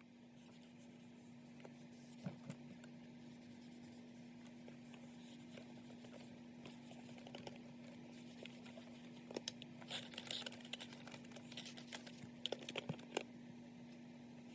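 Small electric fabric shaver running with a steady faint hum, with scratchy rubbing and clicks as it trims fuzz off a toy; the scratching grows busier about two-thirds of the way through.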